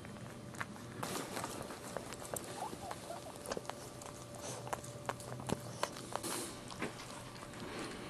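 Dogs in a whelping box: scattered soft clicks and rustling, with a few short, faint squeaks a little over two seconds in.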